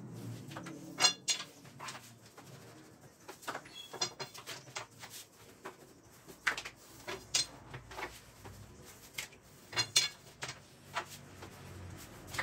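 A long thin rolling pin (oklava), wrapped in yufka dough, rolled back and forth under the hands on a marble slab, giving irregular sharp clicks and knocks as it shifts against the stone. The louder knocks come about a second in and again past the middle.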